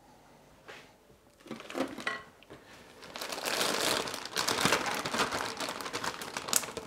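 Resealable plastic bag crinkling as it is handled. It starts faintly about a second and a half in and grows denser and louder from about three seconds on.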